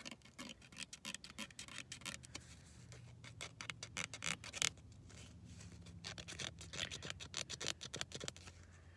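Scratch-off lottery ticket being scratched: a run of quick, dry scraping strokes, the strongest about four and a half seconds in.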